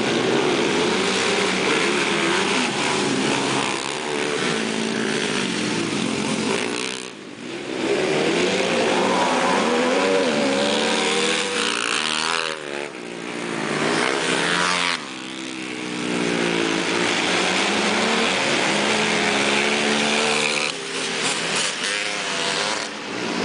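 Racing ATV engines revving hard, their pitch rising and falling again and again as the quads accelerate and back off around the dirt track, with a few brief dips in loudness.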